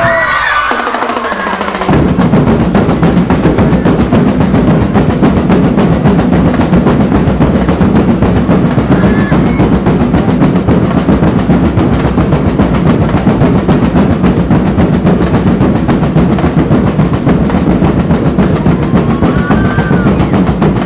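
Festival street-dance percussion ensemble of drums playing a fast, driving beat with continuous snare-drum rolls, coming in loudly about two seconds in after a short burst of crowd cheering.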